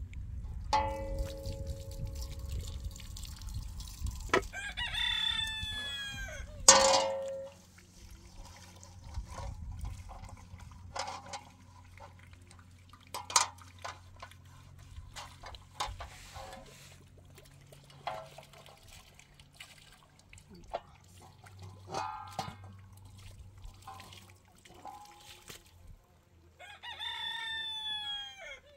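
A rooster crowing twice, about five seconds in and again near the end, among scattered knocks and clicks. A low rumble underneath stops about seven seconds in.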